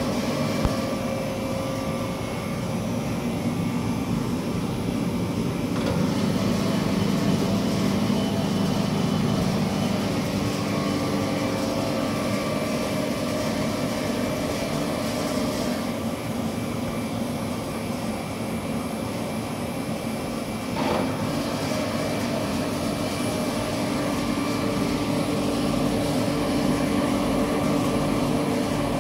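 Wiesheu bakery oven running its automatic cleaning program: water spraying and splashing inside the baking chamber against the glass door, over a steady machine hum. A short knock about twenty-one seconds in.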